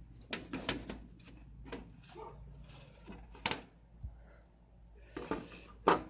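Irregular metal clatter and knocks of hash boards and case parts of an Antminer S2 bitcoin miner being worked loose and pulled out, with the sharpest knock near the end.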